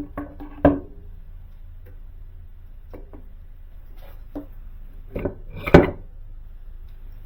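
Scattered knocks and clinks of tools and metal motor parts being handled and set down, one with a brief ringing tone near the start and the loudest pair about five to six seconds in, over a steady low hum.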